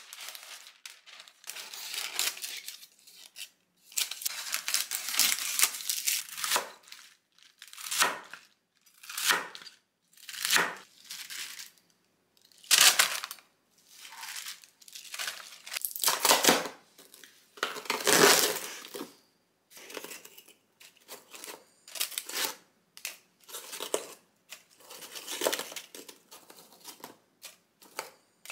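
Hand-handled food prep sounds: parchment cooking paper crinkling as it is fitted into a bamboo steamer, and napa cabbage leaves being torn and broken by hand. Heard as an irregular series of separate crisp rustling and tearing sounds, some louder than others.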